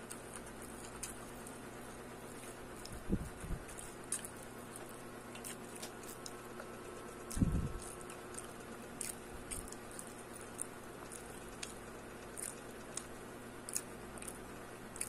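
Close-up chewing and mouth sounds of a person eating a root-crop burger patty: soft wet smacks and small clicks scattered through, with a few low thuds about three seconds in and again about halfway, over a steady faint hum.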